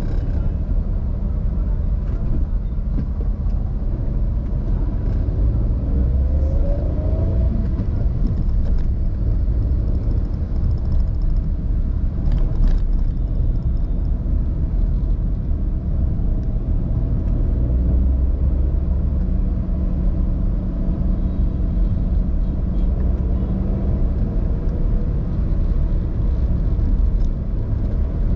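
Car driving along a road: a steady low rumble of engine and tyres, with a short rising whine about six seconds in and a brief click near the middle.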